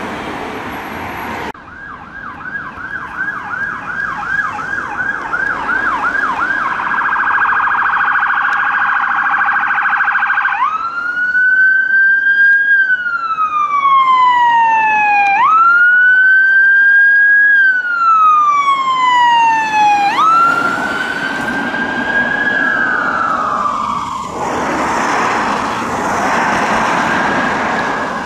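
Electronic siren of a Mercedes-Benz ambulance responding on blue lights. It starts as a quick yelp sweeping about three times a second, switches to a faster warble, then runs three slow wails, each rising sharply and falling over several seconds. Near the end the siren sinks under the noise of passing traffic.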